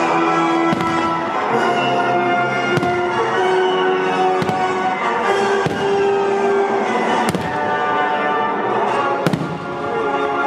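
Aerial firework shells bursting, about six sharp bangs a second or two apart, over loud orchestral music with long held notes.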